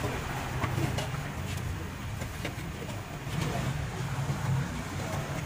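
Street traffic of motorbikes and cars running past, a steady low rumble, with a few light clicks over it.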